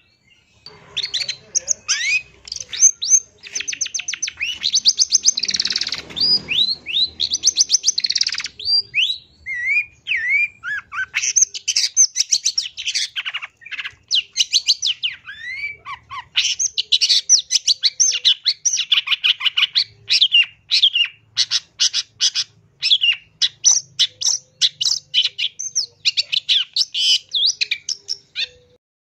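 Long-tailed shrike singing: a fast, varied run of sharp chirps, rapid trills and downward-sweeping whistled notes, with a harsher, noisier stretch about six seconds in.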